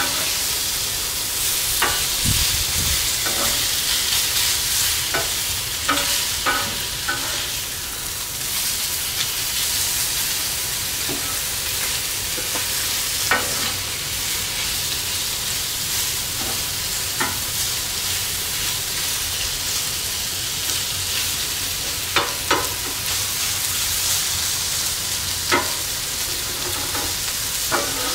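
Diced chicken thigh sizzling steadily on a Blackstone griddle's flat steel cooktop, with a metal spatula scraping and clicking against the griddle every few seconds as the meat is turned.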